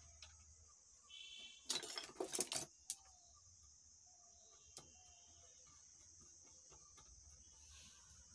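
A short burst of metallic clinking and rattling about two seconds in, then a few faint clicks, from the amplifier's finned aluminium heatsink board and its parts being handled while a replacement MOSFET is fitted. A steady high drone of crickets runs underneath.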